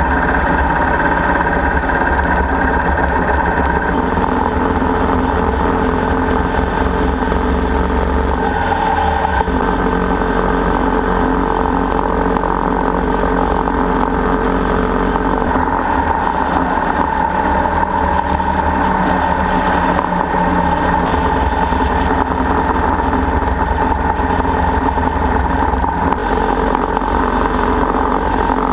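Motorcycle running steadily at road speed, heard from an onboard camera, with engine drone under a heavy low rush of wind on the microphone.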